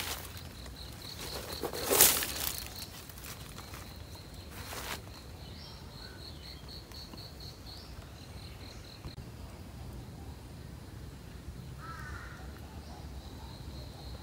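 An insect chirping in a rapid, even pulse at a high pitch, steady throughout, with a few short noises on top, the loudest about two seconds in.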